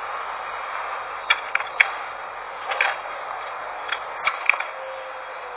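Irregular sharp clicks and ticks of hands working at a stalled motor scooter's handlebar and ignition area, trying to get it started, over a steady hiss of background noise.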